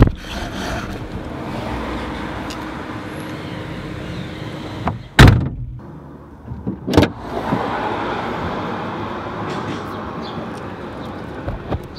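Car boot lid: a click at the start, then a heavy thump as the lid shuts about five seconds in, with the outside noise muffled. About two seconds later a sharp latch click as the lid is opened, and the steady street noise comes back.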